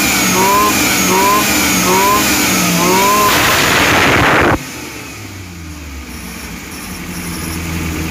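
Suzuki Futura 1.5's engine being blipped on the throttle, the revs rising and falling in a quick, even rhythm. Then comes a louder rush of about a second that cuts off suddenly to a lower, steady idle. With a faulty spark plug replaced, it revs up without the shaking it had before.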